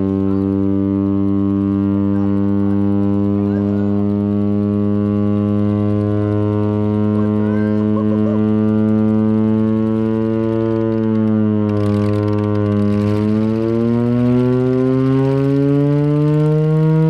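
Chrysler-Bellows air raid siren, the giant engine-driven mechanical siren powered by a Hemi V8, sounding at full blast. It holds one steady, rich tone for about eleven seconds, then the pitch dips briefly and climbs again toward the end.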